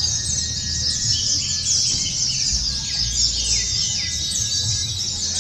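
A dense chorus of many white-eyes (pleci) singing at once, fast high chirps and trills overlapping without a break, over a low background rumble.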